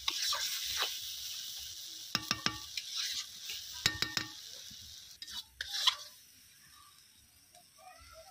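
Chicken curry sizzling in an iron kadai while a spatula stirs and scrapes through it, with two ringing clangs of the spatula against the pan about two and four seconds in. The sizzle and scraping die down after about six seconds.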